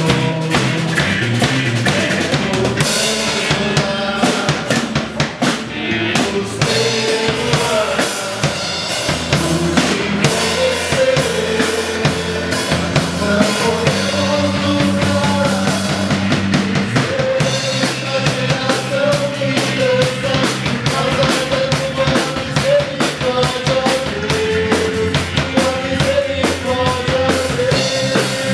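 A live band playing a worship song: a Pearl drum kit keeping a steady beat on bass drum and snare, with electric bass and guitar under a sung melody.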